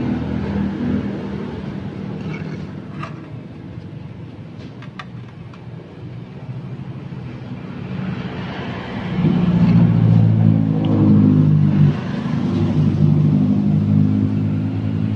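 An engine running steadily, growing louder about nine seconds in and staying louder, with a few light clicks in the first five seconds.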